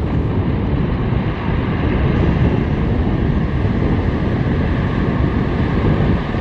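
Surf washing up the beach and wind buffeting the microphone, with a steady engine drone underneath.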